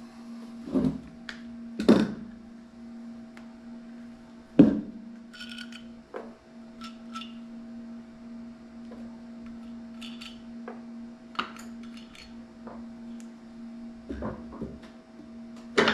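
Aluminum soft-plastic bait molds being opened and handled: scattered metallic knocks and clinks, the loudest a sharp knock about four and a half seconds in, over a steady low hum.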